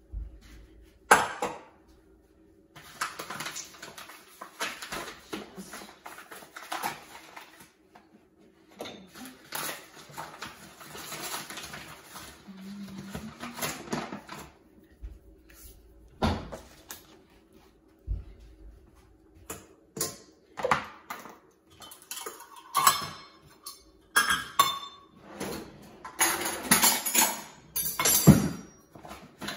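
Kitchen handling sounds: a bag of bread flour rustling as she reaches into it, with scattered clinks and knocks of a stainless steel mixing bowl and a measuring cup on the counter.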